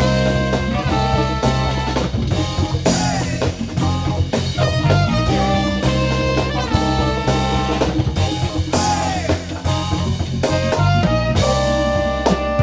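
A live jazz-funk band playing: a drum kit keeps a steady groove under electric bass and guitar, with trumpet and saxophone carrying the melody lines.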